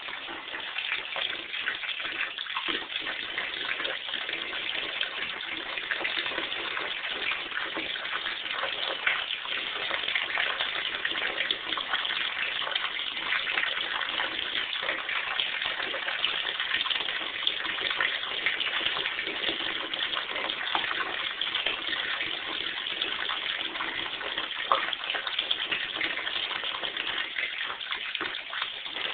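Water running into a bathtub from the tap: a steady rush with small irregular splashes throughout.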